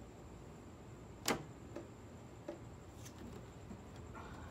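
Sharp clicks and taps of parts and hands working on a car's rear wing while a wing stabilizer is fitted: one sharp click about a second in, a few fainter ticks after, and a louder knock right at the end.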